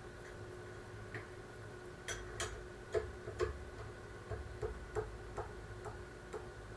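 Haas VF-2 CNC vertical milling machine running, with a steady faint machine whine under a scatter of irregular sharp clicks and ticks in the middle of the stretch.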